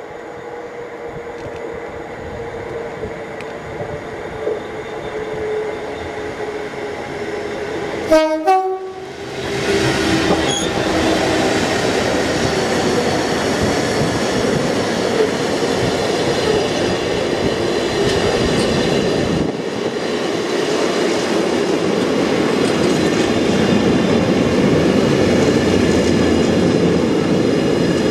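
DRS Class 66 diesel locomotive growing louder as it approaches, its two-stroke EMD V12 engine working. About eight seconds in it gives a short two-note horn blast and passes. A long container train follows, the flat wagons' wheels rumbling steadily over the rails.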